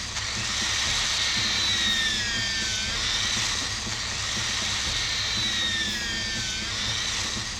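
A machine running with a steady hiss and a whine that dips in pitch and recovers about every two and a half seconds.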